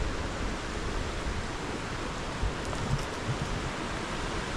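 Steady rushing of a rain-swollen creek running high, with a few soft low bumps partway through.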